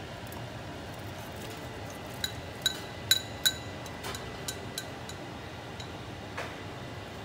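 A ceramic bowl clinking as chopped asparagus is tipped and tapped out of it into a stainless steel soup pot. There are four sharp, ringing taps in quick succession about two to three and a half seconds in, then a few fainter ones.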